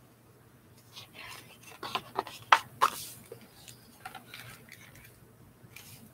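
Pages of a large hardcover picture book being turned and the book handled: a short run of sharp paper rustles and taps, loudest between about two and three seconds in.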